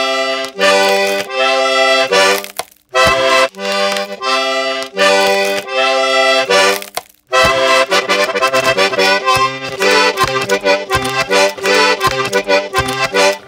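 Toy accordion played solo: long held chords, broken twice by short pauses, then a quicker run of short, choppy notes in the second half.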